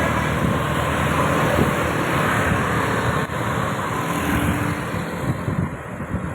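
A large bus driving past, its engine and tyre noise growing fainter near the end as it moves away.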